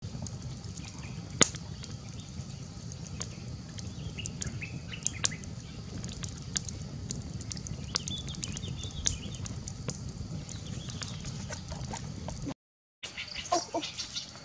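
Wood fire crackling with scattered sharp pops over a steady low rumble, with birds calling now and then; the sound breaks off briefly near the end.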